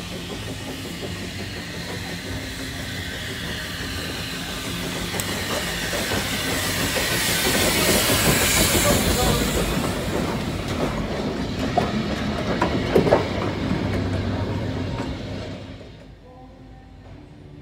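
Small blue saddle-tank steam locomotive and its carriage passing slowly: steam hiss building to a peak midway, then the wheels clicking over rail joints as the coach rolls by. The sound drops away sharply near the end.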